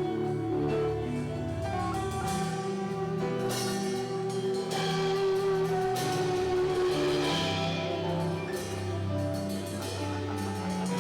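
Instrumental worship music without singing: held chords that change every second or two, with light drum and cymbal strokes.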